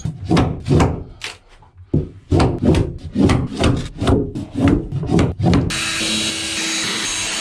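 Rhythmic rasping strokes on wood, about three a second, from demolition work on an old boat's cabin interior, with a short pause about a second and a half in. Near the end a steady machine noise with a fixed hum takes over.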